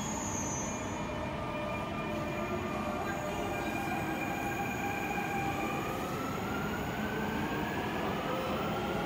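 Alstom-built Dubai Metro train's electric traction drive whining over a steady rumble. From about halfway through, the whine rises steadily in pitch as the train starts to accelerate away from the platform.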